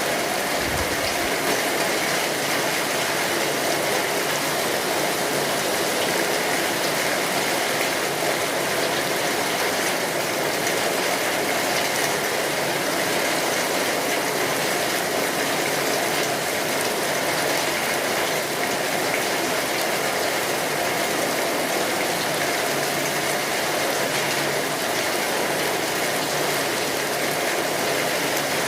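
Steady rain on a tin roof, a dense even patter of drops on the metal, with a wood fire crackling.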